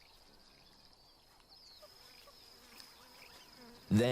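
Faint insect chorus: a steady, high, rapidly pulsing buzz with a few faint scattered chirps. A loud pitched call or voice breaks in just before the end.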